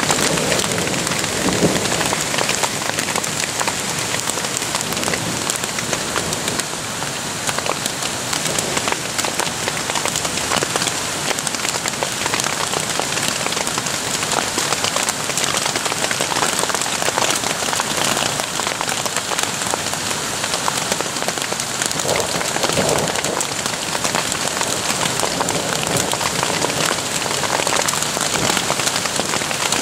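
Hail falling steadily on tent fabric: a dense, even hiss of countless small hits.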